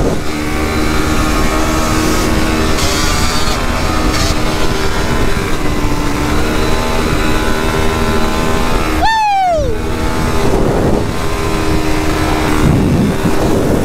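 Single-cylinder four-stroke engine of a 2019 Yamaha YFZ450 sport ATV running under throttle at a steady high speed on a dirt road. About nine seconds in, the engine note falls sharply for a moment, then comes back to a steady pull.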